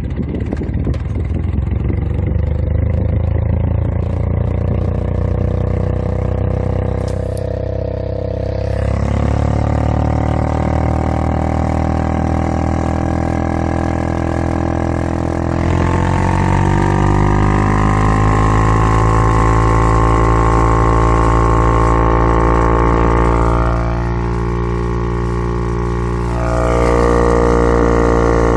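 Car air conditioner making a loud, engine-like droning howl. The pitch slides upward and jumps higher three times, with a short drop a few seconds before the last rise.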